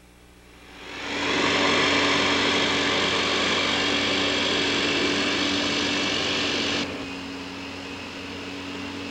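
Electric walk-behind lawn mower running, a steady motor whine with the blade spinning. It fades in over the first second and drops in level about seven seconds in.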